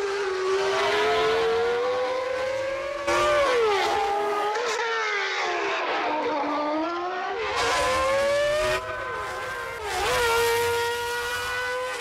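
Recreated engine note of a 1989 Honda V10 Formula One engine, run at high revs along a lap. The pitch climbs and falls with the revs, sinking lowest about halfway through as the car slows for a corner, with a few sharp drops in pitch at gear changes.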